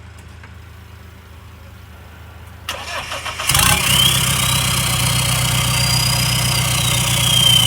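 Mahindra Roxor's four-cylinder turbodiesel cranked on the starter and catching about three and a half seconds in, then idling loud and tractor-like through a 2.5-inch dump pipe straight off the turbo. A high turbo whistle rises and then falls back over the idle.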